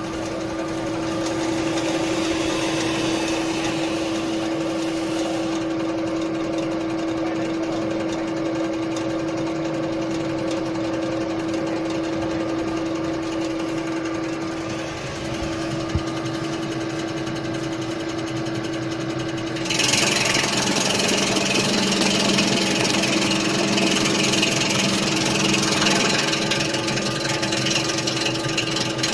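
Electric Chinese-sausage slicing machine running with a steady hum. About twenty seconds in it gets louder and harsher, with a noisy hiss over the hum.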